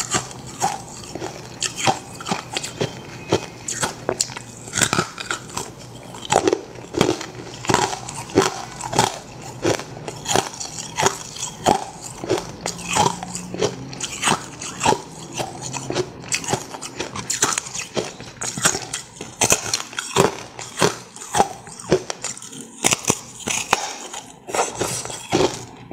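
Close-up biting and crunching of a block of carbonated ice, white and brittle with trapped bubbles: sharp cracks and crunches roughly one or two a second, with chewing in between.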